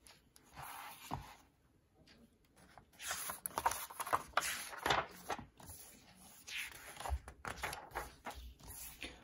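A hardcover picture book being opened and its thick pages turned by hand: paper rustling and flapping with soft knocks. This runs from about three seconds in, after a brief faint rustle and a quiet moment.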